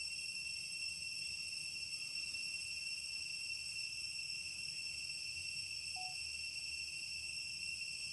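A chorus of insects keeps up a steady, high-pitched drone that never breaks.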